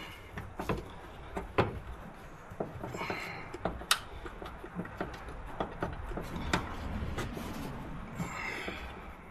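Scattered clicks and knocks of a nut and hand tools being handled while fitting a rear shock absorber, with one sharp click about four seconds in and two brief scraping rustles.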